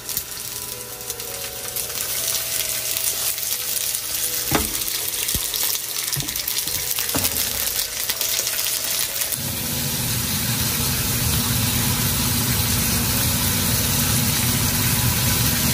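Slices of marbled beef frying in hot oil in a nonstick pan, sizzling steadily and getting louder over the first few seconds. There are a couple of sharp knocks as pieces are laid in and moved with wooden chopsticks, and a lower, rougher layer joins the sizzle about nine seconds in.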